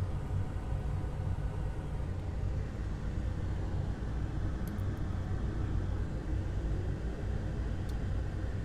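Steady low background rumble, with a few faint light clicks about five and eight seconds in.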